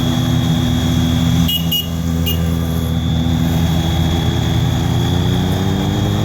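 Fire engine's Cummins diesel idling steadily, its pitch starting to rise slowly near the end. Over it the building's fire alarm sounds a steady high tone, and a vehicle horn gives three short beeps about a second and a half in.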